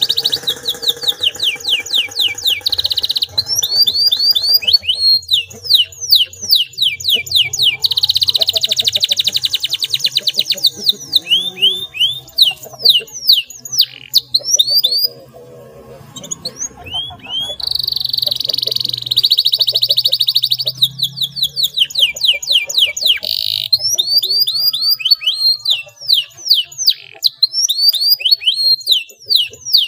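Domestic canary singing a long song of clear rolls: fast runs of repeated down-slurred notes alternating with dense, rapid trills, breaking off briefly about halfway through before starting again.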